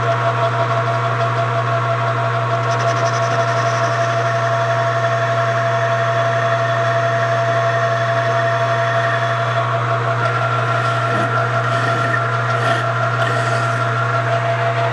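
Metal lathe running, its cutting tool turning a taper on the end of a spinning metal shaft: a steady motor hum and whine with the scrape of the cut. Near the end a hand file is worked against the spinning part for a few short scratchy strokes.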